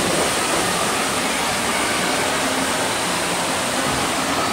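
Steady rush of water pouring into the start of a water slide tube.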